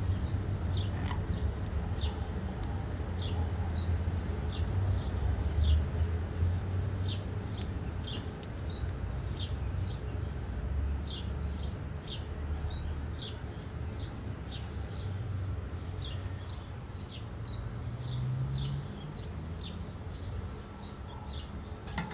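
A bird chirping over and over: short, high, downward chirps about twice a second, over a low steady rumble.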